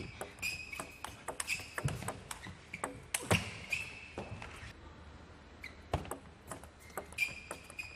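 Table tennis play: the celluloid-type ball clicking sharply off rubber bats and the table at irregular intervals, with brief squeaks of players' shoes on the court floor.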